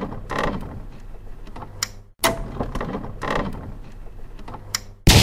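Metallic clacks and ratcheting of a gun mechanism being worked, like a cannon being cocked and loaded; the same run of sharp clacks is heard twice. A loud blast of gunfire starts near the end.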